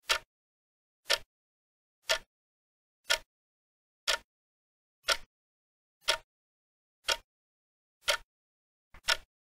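Clock-tick sound effect, one sharp tick about every second, with a doubled tick near the end: a countdown timer running out the time to answer.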